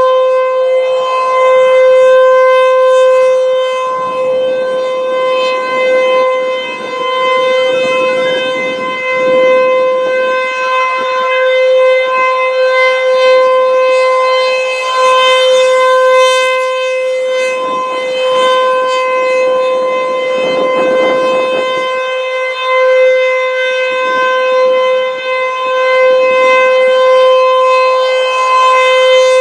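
ASC T-128 rotating outdoor warning siren sounding a steady tone at full speed. Its loudness swells and fades every three to four seconds as the horn sweeps past.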